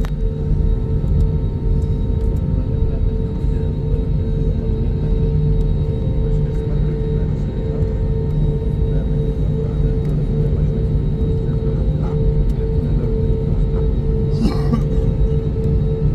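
Airbus A321neo cabin noise: the jet engines' steady drone with a deep rumble and a few steady whining tones, heard from inside the passenger cabin. A brief noise comes near the end.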